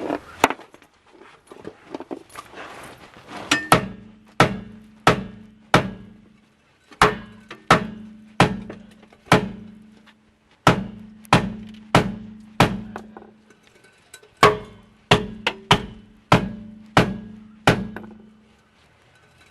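About twenty hammer blows on metal in runs of three to five with short pauses. Each blow rings with a pitched steel tone. The blows are striking a rusted, seized part that will not come free.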